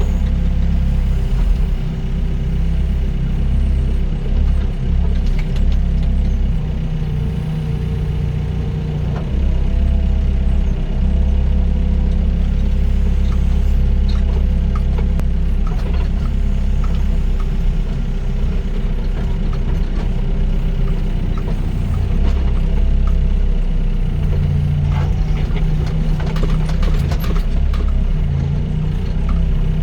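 Doosan DX55 mini excavator's diesel engine running under load as it digs, its pitch shifting as the hydraulics work, with a few scrapes and knocks of the bucket in the soil.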